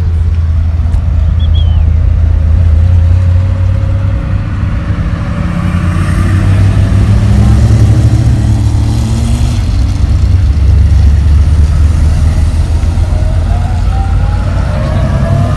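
Classic cars' engines running low and loud as the cars drive slowly past one after another. Near the end one engine's pitch rises as it accelerates.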